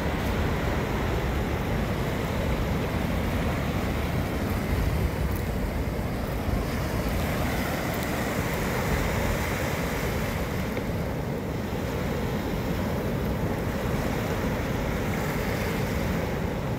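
Surf washing onto a beach, a steady rushing noise, with wind rumbling on the microphone.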